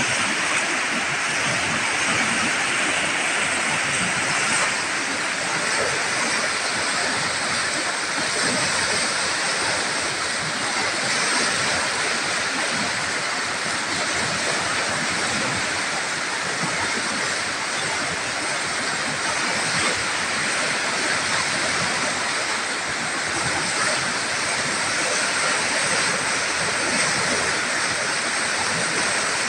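A river in flood, swollen by heavy rain, its muddy water rushing and churning over rapids: a loud, steady rush of water with no breaks.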